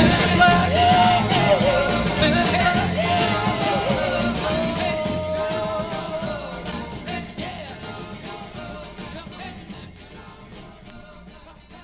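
1960s rock-and-soul band recording with a steady drum beat and a bending melody line, fading out gradually over the last several seconds.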